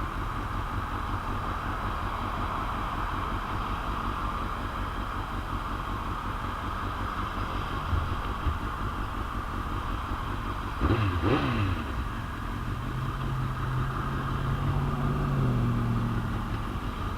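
Heavy wind noise on the microphone over a 2001 Suzuki GSX-R750's inline-four engine running on the move. About eleven seconds in the pitch rises and falls briefly, then the engine holds a steady note that climbs a little near the end.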